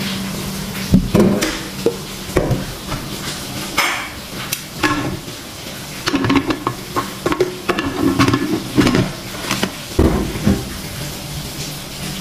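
Aluminium pressure cooker being handled: irregular metallic clatter and scraping as the lid is fitted and locked into place by its handle, with some short ringing knocks, and a low knock about ten seconds in as the pot goes down on the gas stove.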